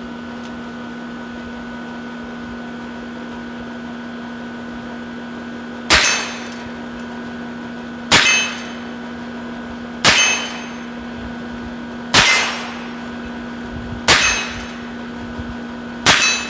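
Six shots from a Heritage Rough Rider .22 single-action revolver, about two seconds apart and starting about six seconds in, each a sharp crack with a short metallic ring after it, over a steady hum.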